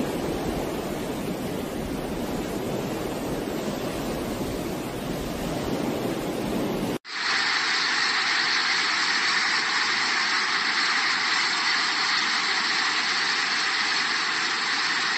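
Fast-flowing floodwater rushing in a steady, continuous noise. After an abrupt cut about seven seconds in, the rush becomes brighter and hissier.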